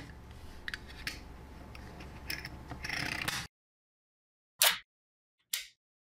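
Small magnetic balls being handled, clicking and scraping against each other and a clear plastic sheet, followed by two short, sharp clicks about a second apart near the end.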